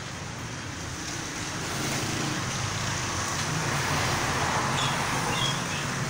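A steady background din with a low hum, a little louder from about two seconds in, with a few faint short budgerigar chirps in the second half.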